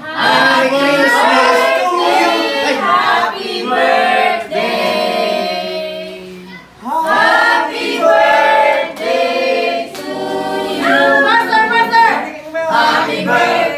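A group of people singing together unaccompanied, with a short break a little past halfway before the voices come in again.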